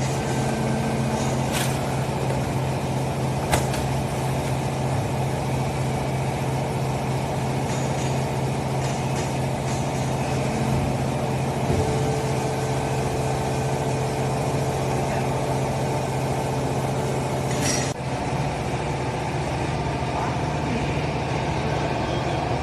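Hydraulic baling press's motor and pump running with a steady drone, with a few sharp clicks over it and a slight change in tone after a click late on.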